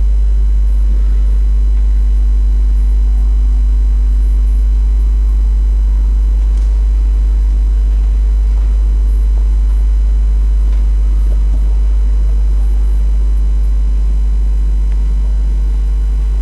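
Loud, steady electrical mains hum: a low buzz with a ladder of overtones, unchanging throughout.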